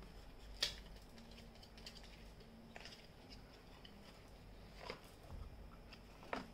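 Tarot cards being handled, with four faint, sharp snaps a second or two apart; the first is the loudest.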